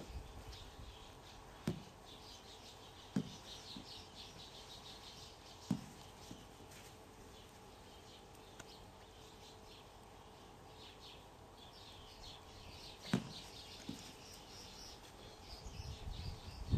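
Faint twittering of small birds, many short high chirps, with a few soft thuds scattered through.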